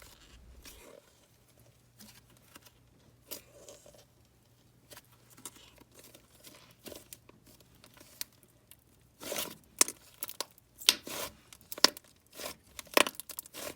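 Butter slime being handled and stretched, giving faint sticky clicks at first and then, from about nine seconds in, a quick run of louder crackly, tearing pops.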